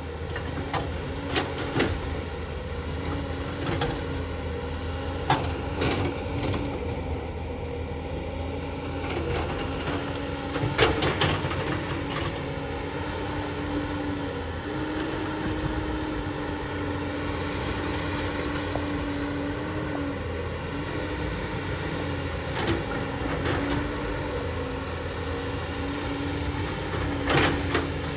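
JCB JS220 tracked excavator working: its engine and hydraulics drone steadily, with a whining tone that steps up and down in pitch as the machine is worked. Sharp knocks come now and then, the loudest about eleven seconds in and another near the end.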